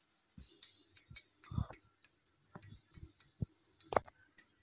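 Hands rolling a damp poha-and-vegetable mixture into balls over a glass mixing bowl. Scattered small clinks and ticks come a few a second as the hands and a bangle touch the glass, with two duller knocks about a second and a half and four seconds in.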